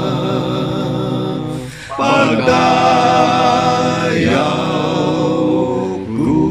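One man's voice multitracked into a cappella harmony, holding long wordless hymn chords that change about two seconds in, again near four seconds, and once more near the end.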